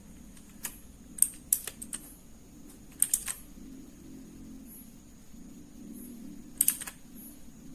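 Keys of a RAKK DIWA 68-key mechanical keyboard with Outemu switches being pressed: sharp clacks in small clusters of two to four, with pauses of a second or more between, over a faint steady hum.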